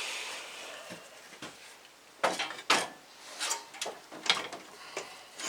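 Metal clunks and knocks as an alternator is worked and bumped against its mounting in an engine bay: one hit with a short ring at the start, then a string of sharp knocks through the second half.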